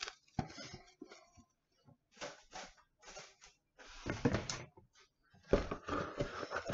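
Plastic cling wrap crinkling and rustling in irregular bursts as it is pulled and pressed over a plastic egg-carton seed tray. Near the end the cardboard cling-wrap box is handled, with a low bump.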